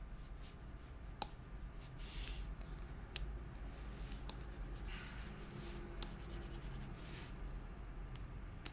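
Apple Pencil nib scratching across a magnetic paper-like matte screen protector in quick back-and-forth zigzag strokes, with sharp taps as the tip lands. The rough, papery scratch is the protector's textured surface giving drag to the pen.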